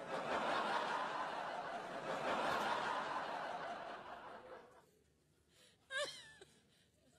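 Studio audience laughing for about five seconds, fading out toward the end. Then one person gives a short laugh about six seconds in.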